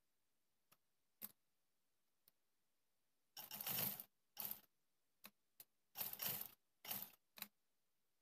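Black sewing machine stitching in short runs, about five bursts of a fraction of a second each, starting about halfway through with brief clicks between them. A few single clicks come before the stitching starts.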